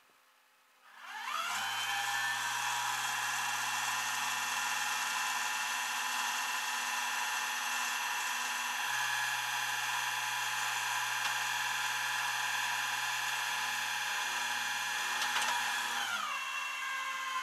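Rollback tow truck's winch pulling a car up the tilted bed: a steady whine with several tones that rises in pitch as it starts about a second in and falls away as it stops about a second before the end.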